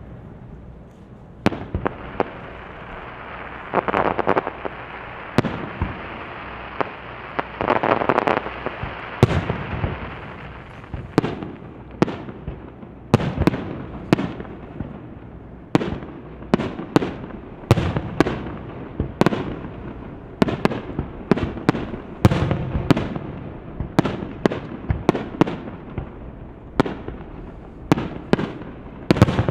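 Fireworks display: a starmine barrage of shells bursting in quick succession, with a dense crackling stretch in the first third that swells loudest twice, then a fast run of separate bangs to the end.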